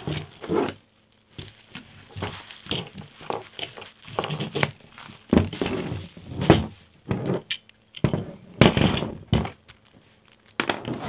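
Bubble wrap crinkling and rustling as it is pulled off a camera stabilizer, with irregular knocks and thunks as the stabilizer is handled and set down on a table.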